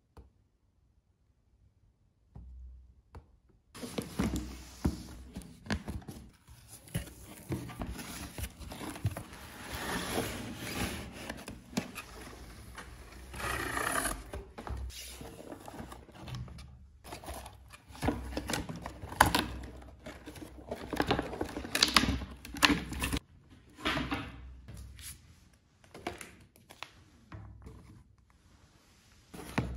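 A cardboard box and its packaging being opened and handled: irregular rustling, scraping and clicking of cardboard and plastic, with dull knocks as parts are moved and set down. It starts after a few quiet seconds and thins out near the end.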